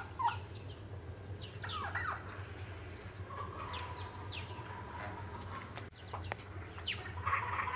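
Small birds chirping in quick, high, falling notes throughout, over a steady low hum. Farmyard fowl call several times at a lower pitch: about two seconds in, in a longer held call in the middle, and again near the end.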